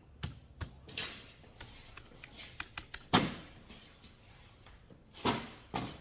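Computer keyboard keys tapped in irregular runs of clicks, with two louder knocks, one a little after three seconds in and one about five seconds in.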